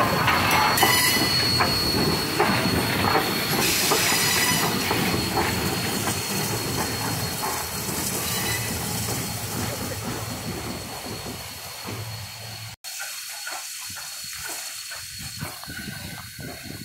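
A 2-8-0 steam locomotive rolling slowly past close by: a loud, noisy rumble of its running gear and steam that gradually fades as it moves away. About three-quarters of the way through, the sound cuts out for an instant and returns fainter and more distant.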